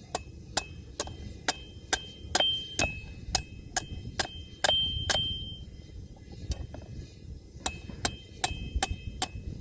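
Hand hammer striking heated steel stock on an anvil in back face blows, which give the bar a slight upset. The blows come in a steady run of about two to three a second, some with a short metallic ring. They pause for about two seconds in the middle, then resume.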